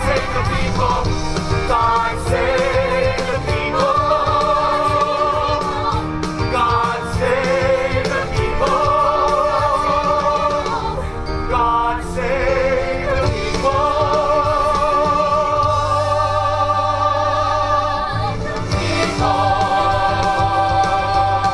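A musical-theatre cast singing together in harmony over a band, with long held notes sung with vibrato.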